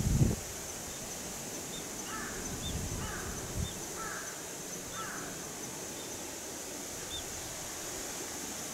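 A brief low rustle of cat fur rubbing against the microphone at the start, then steady outdoor hiss with a bird calling four times, about a second apart.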